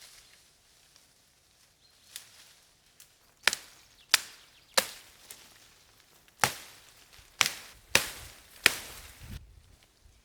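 Axe chopping wood, seven sharp blows at an uneven pace starting about a third of the way in, with a couple of lighter taps before them.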